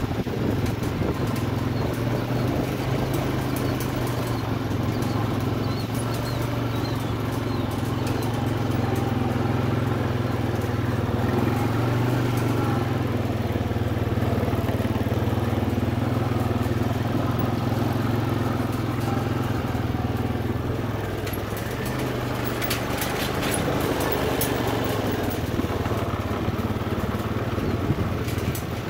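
Farm vehicle engine running steadily while driving across a pasture, with bursts of rattling about two-thirds of the way through and again near the end.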